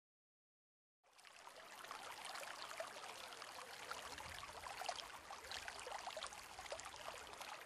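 Faint water sound, trickling and splashing with many small crackly drops, fading in about a second in.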